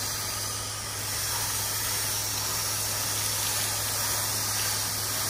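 Pressure-washer spray hissing steadily from a wand nozzle as water rinses a house's stucco wall and eaves, the rinse stage after a sodium hypochlorite wash, with the wand worked in circular motions. A low steady hum runs underneath.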